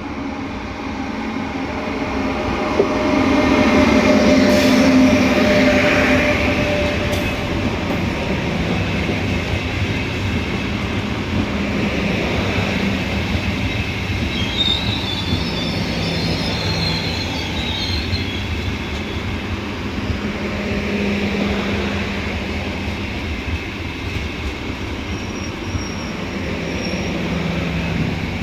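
Frecciarossa ETR500 electric high-speed train pulling into its terminus. It is loudest a few seconds in as the power car passes, then the coaches roll by with a steady rumble. High brake and wheel squeal comes in midway and again faintly near the end as the train slows.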